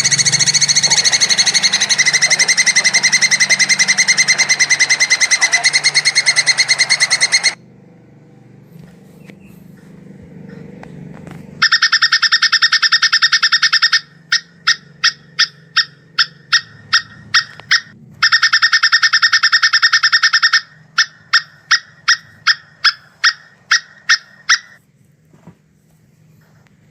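Plantain squirrel (coconut squirrel) giving its mating call: long bursts of very rapid, high-pitched chattering, each followed by a run of single sharp chips about two or three a second.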